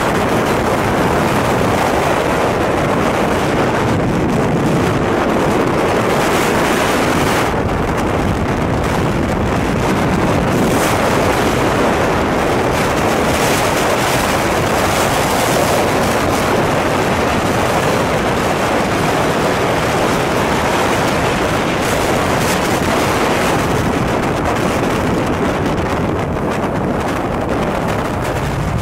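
Wind rushing over the microphone of a camera mounted on a motorcycle cruising at highway speed, a loud steady rush that covers the bike's engine.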